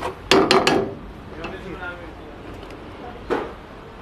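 Metal ladle knocking against a steel pan while stirring thick spinach gravy: a quick run of about four sharp knocks shortly after the start, then a single knock near the end.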